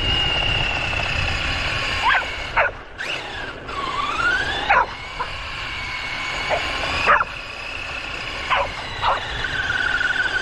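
A radio-controlled buggy's motor whining, its pitch rising and falling with speed, while dogs chasing it give short, sharp yipping barks again and again from about two seconds in.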